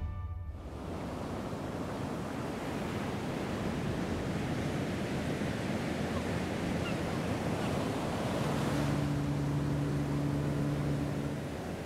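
Sea waves washing with a steady rush. About eight and a half seconds in, a low steady hum joins for about three seconds, then stops.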